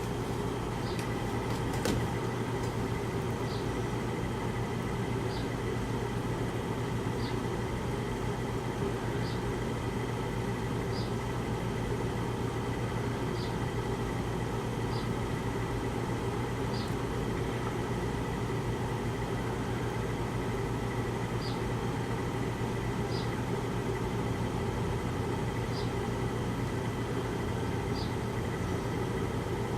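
Air conditioner running with its compressor switched off, only the fan blowing: a steady hum and rush of air. Faint short high chirps come about every two seconds.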